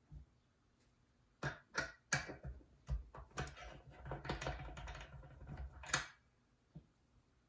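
Backplate being removed from a Hudy starter box: a series of small sharp clicks and knocks of tool and parts, with a denser stretch of rattling clicks in the middle.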